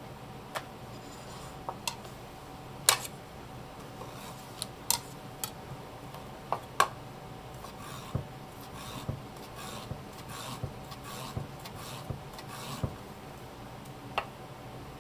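Kitchen knife slicing raw bigfin reef squid on a wooden cutting board: irregular sharp taps of the blade against the board, with a run of softer slicing strokes in the second half.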